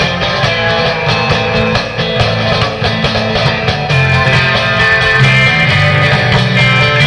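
Instrumental guitar band music: a lead guitar melody over rhythm guitar and bass, with a steady beat.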